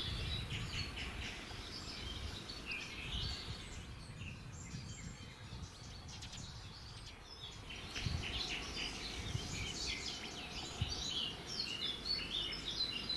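Small songbirds chirping and twittering in quick runs. The chirping thins out for a few seconds in the middle and grows busy again, over a low rumbling background noise.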